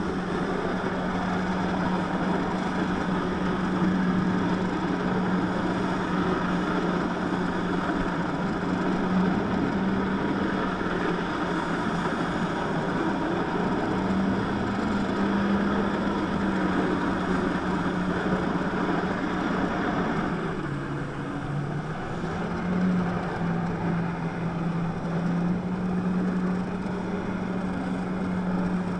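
Jet ski engine running steadily at high revs to drive a flyboard's water jet, with a rushing noise throughout. About two-thirds of the way through, the revs dip briefly and then climb back up.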